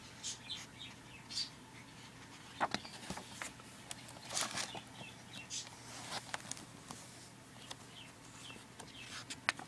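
Paper rustling and crinkling in short, irregular bursts as calendar pages are handled and turned, over a faint steady hum.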